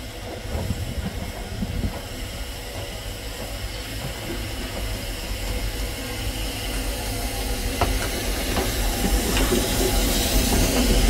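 Ffestiniog Railway double Fairlie 0-4-4-0T steam locomotive No. 12 'David Lloyd George' running slowly past at close range, with a steady steam hiss over a low rumble. The sound grows louder as the engine comes alongside, and a few sharp clicks come in the second half.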